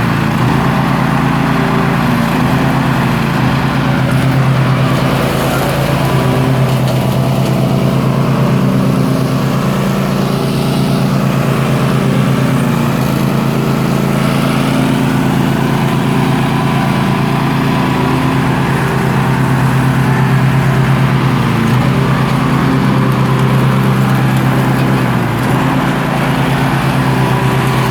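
Riding lawnmower's engine running steadily under way, with the engine speed dipping briefly twice near the end.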